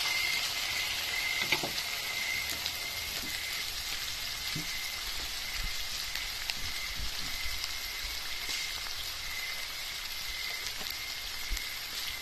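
Ground meat and sliced red hot dogs sizzling steadily in oil in a wok, with a few faint clicks.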